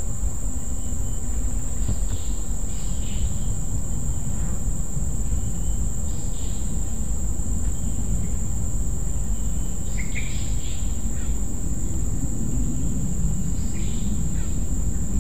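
Insect chorus with a steady high-pitched cricket-like trill, over a constant low rumble, with a few short chirps scattered through it.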